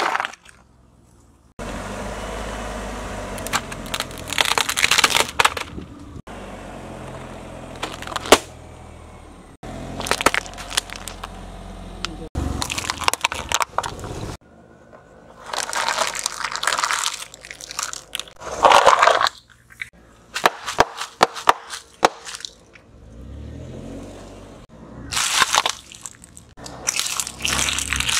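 A car tyre rolling slowly over small objects and crushing them, in a string of short clips: cardboard boxes crumpling and plastic toys cracking and snapping, a run of sharp crunches in each clip. A low steady rumble from the car lies under some of them.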